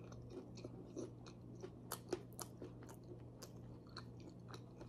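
A person chewing a mouthful of food up close, with soft wet smacks and clicks at irregular intervals. A faint steady low hum runs underneath.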